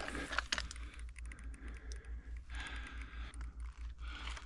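Faint clicks and scuffs of someone moving in a gravel-floored crawlspace, stones shifting and hands and clothing brushing against pipes, with a cluster of sharper clicks about half a second in. A low hum pulsing several times a second runs underneath.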